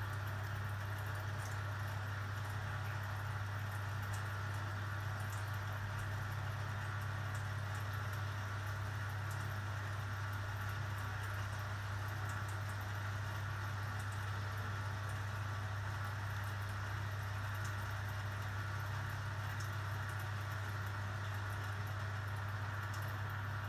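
Steady low electrical hum with a fainter hiss over it, unchanging, and a few faint ticks.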